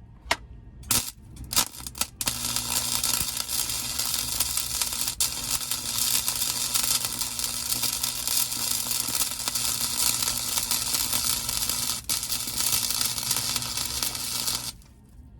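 Electric welding arc on sheet-metal car floor pans: a few brief arc strikes in the first two seconds, then one steady crackling, sizzling bead of about twelve seconds with a low hum beneath it, cutting off suddenly near the end. The welder himself says he was running the bead too fast for the metal to attach.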